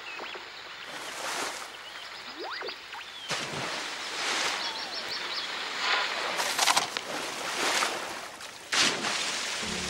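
Bottlenose dolphin sounds: short whistles that slide up in pitch and quick runs of clicks, with several brief splashes of water.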